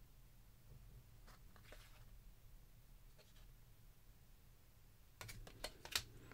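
Trading cards being slid and shuffled in the hands: near silence with faint papery rubbing, then a quick run of sharp card clicks about five seconds in.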